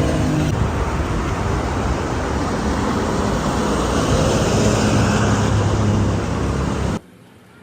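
Motor vehicle engine running amid road traffic noise, a steady mix of low hum and wide rushing noise that cuts off abruptly near the end.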